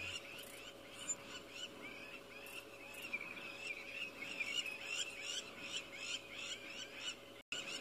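A chorus of short, high animal calls repeating two or three times a second. The audio cuts out for a moment near the end.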